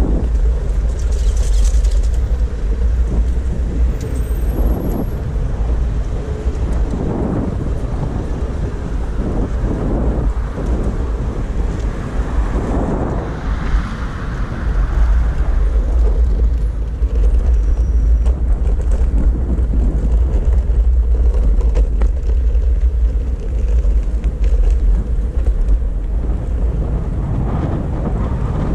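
Wind buffeting the microphone in a steady low rumble while riding an electric skateboard, with road traffic passing; a few vehicles swell up and fade about a third of the way in.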